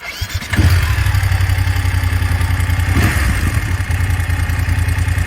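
BMW F850GS parallel-twin motorcycle engine running, steady and loud from about half a second in. The owner says it has a ticking noise. The dealer's mechanic takes it for a cam chain tensioner problem, and the owner suspects prematurely worn rocker arms in the cylinder head.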